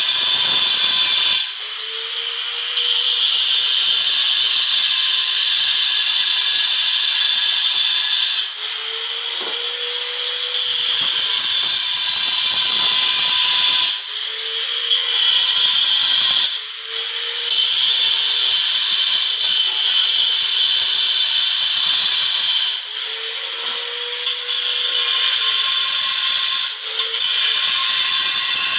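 Handheld angle grinder cutting a hole in a marble slab: a loud, high-pitched grinding screech in long passes. Several times it drops for a second or two to a lower hum between cuts.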